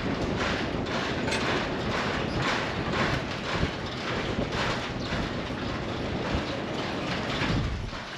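Strong wind buffeting the microphone, a steady low rumble with hissy gusts that pulse about twice a second.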